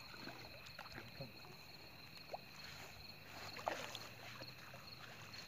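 A hooked carp being reeled in to the bank on a spinning rod: faint water splashing and small scattered clicks, with a couple of sharper ticks in the middle. A steady high-pitched trill runs underneath.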